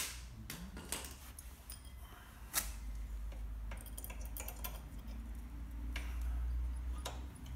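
Metal hand tool clinking and clicking against the bolts of a motorcycle footpeg bracket as it is fitted and tightened: a few separate sharp clinks, then a quick run of small ticks about four seconds in. A low steady hum runs underneath.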